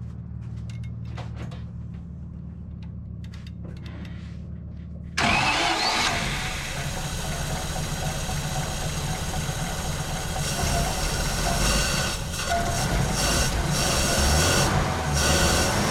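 1950 Pontiac Silver Streak engine, running on its freshly rebuilt carburetor, starts abruptly about five seconds in and keeps running, its sound rising and dipping. A low steady hum comes before it.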